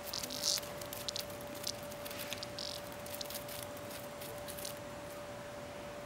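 A cicada caught by a cat gives short, broken buzzes and rapid irregular clicks as the cat paws at it. The loudest burst comes about half a second in, and the sounds die away after about five seconds.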